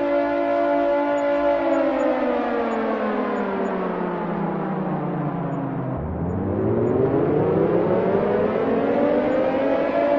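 Air raid siren wailing: a steady note that slides down in pitch over about four seconds, then winds back up to a steady note near the end.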